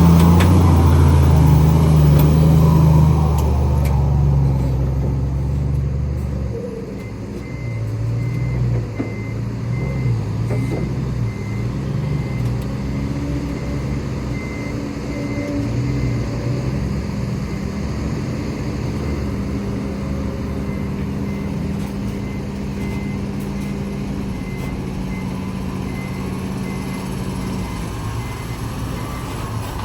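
Heavy diesel machinery running at an earthmoving site: one engine is loud for the first six seconds or so, then the engine sound drops lower. A reversing alarm beeps steadily from about seven seconds in.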